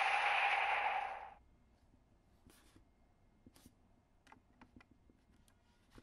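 Electronic sound effect from a CSM Dragvisor toy gauntlet: a steady static-like hiss with a tone in it that fades out about a second in. After it, faint scattered clicks of plastic being handled as an Advent Card is brought to the gauntlet's slot.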